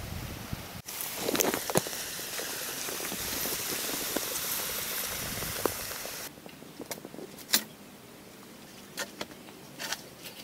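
Water from a garden hose spraying onto the soil floor of a dug trench, a steady hiss and patter that cuts off about six seconds in. After that come a few separate sharp knocks.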